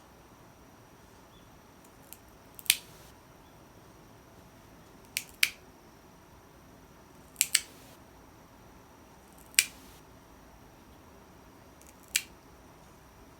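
Nail clippers snipping through a cat's claws: sharp single snips about every two seconds, some in quick pairs.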